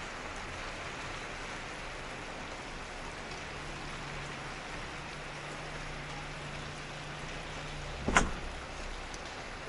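Downpour falling steadily in a thunderstorm, an even hiss of rain, with one sharp crack about eight seconds in.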